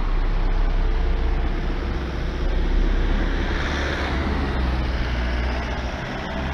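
A car driving past close by: engine and tyre noise that swells about halfway through, over a steady low rumble.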